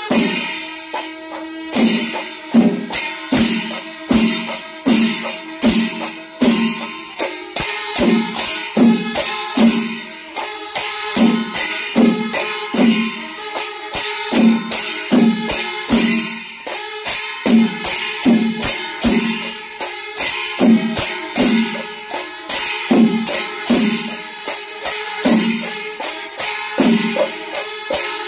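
Kerala chenda melam: chenda drums and elathalam hand cymbals playing loud and steady, deep drum strokes roughly three every two seconds with bright cymbal clashes between them.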